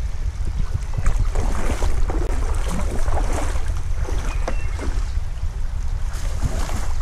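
Wind buffeting the microphone, a steady low rumble, with scattered rustling and light knocks over it.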